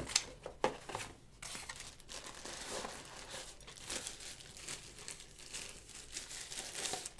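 A few light rustles and knocks of paper and packaging, then a plastic bag crinkling steadily as a small boxed device is lifted out and unwrapped.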